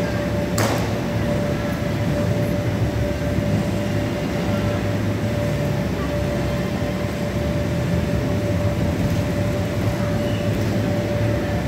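Steady background din of a large, busy hall during a gymnastics meet, with a steady tone running under it and one sharp knock about half a second in.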